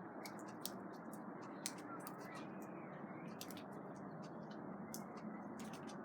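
A steady, low rumbling drone of unexplained origin, not from any plane or jet overhead, with sharp irregular ticks of dripping water over it, several a second.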